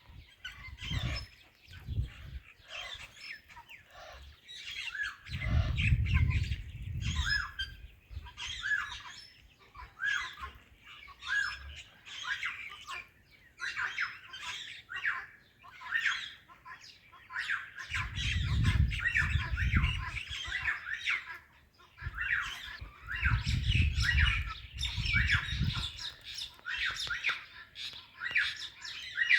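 Parrots (an Indian ringneck and an Alexandrine) squawking and chirping in rapid, repeated short calls. Three stretches of low rumble come through, about six, nineteen and twenty-four seconds in.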